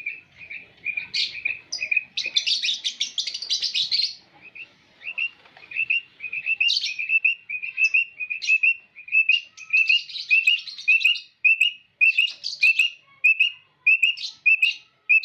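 Quail calling: a steady series of short, sharp high notes, two or three a second, broken by several bursts of rapid, higher-pitched chattering trills.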